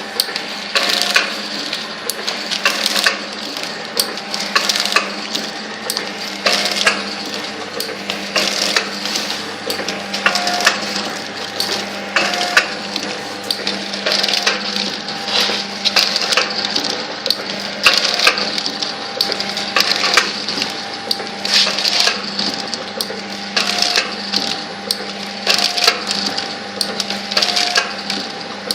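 Liquid sachet filling and four-side sealing machine running, filling perfume: a steady mechanical clatter of clicks and knocks, with a short tone recurring about every two seconds as it works through its fill-and-seal cycle, one sachet at a time.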